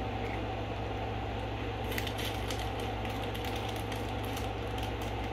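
Steady low room hum, with faint crackling clicks from about two seconds in.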